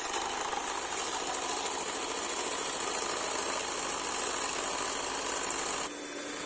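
Electric hand mixer running steadily, its twin wire beaters whisking egg whites in a glass bowl as they turn frothy. The sound drops a little in level about six seconds in.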